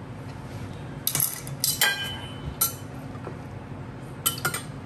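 Metal knife clinking and tapping against a glass baking dish while cutting a baked quiche: about five sharp clinks, the one near two seconds in ringing briefly.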